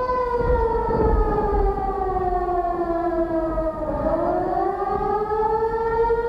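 A sustained siren-like tone from the show's soundtrack over a low rumble. It holds steady, slowly sinks in pitch for about four seconds, then rises back to its first pitch.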